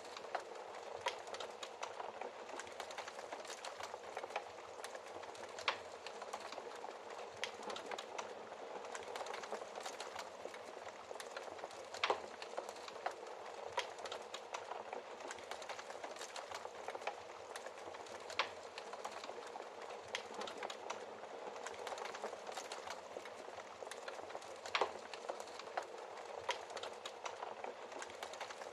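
Wood fire burning in a fireplace: a steady low hiss with irregular crackles and sharp pops, a few louder snaps scattered through.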